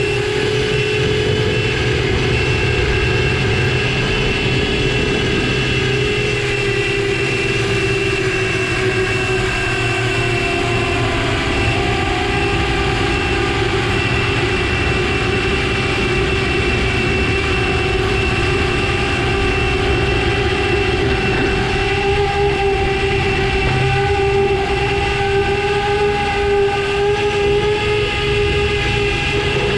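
DarwinFPV Darwin 129 FPV quadcopter's motors and propellers whining steadily in flight, the pitch drifting slightly up and down with throttle.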